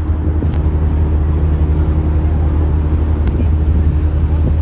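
River cruise boat's engine running with a steady low drone that does not change in pitch.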